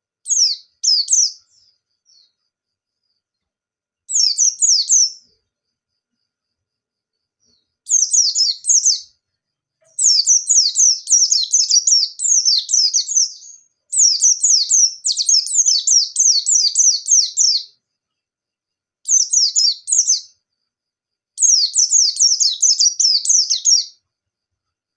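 Pleci bustomi white-eye singing in full, fast 'nembak' song. Loud phrases of rapid, high, quick downward-sweeping notes, from under a second to about three and a half seconds long, come in seven bouts with short silent gaps between them.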